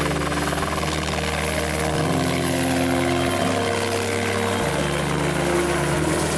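Police helicopter, an AS350 Esquilo-type single-turbine machine, with its rotor and turbine running as it hovers low. Music with sustained low chords that change about every second and a half plays under it.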